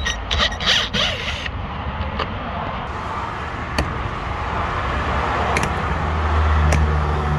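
Screwdriver scraping and clicking on the door panel's Torx screws as they are backed out, with a burst of scraping in the first second or so and a few sharp clicks later. A low steady rumble runs underneath and grows louder near the end.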